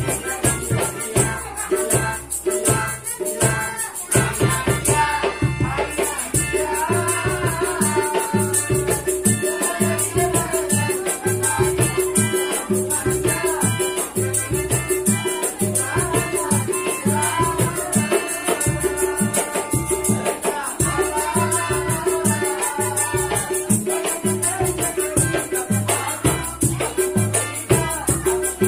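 Street buskers' music: a melodica melody over hand-drum beats and a shaker, in a steady rhythm.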